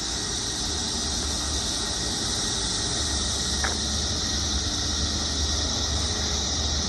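Steady high-pitched drone of an insect chorus over a low outdoor rumble, with one brief faint chirp about halfway through.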